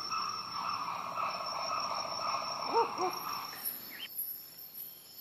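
Dusk wildlife ambience: a steady insect chorus, with a bird giving a short two-note hooting call a little under three seconds in. The chorus cuts off about four seconds in, leaving a faint hiss with thin high-pitched tones.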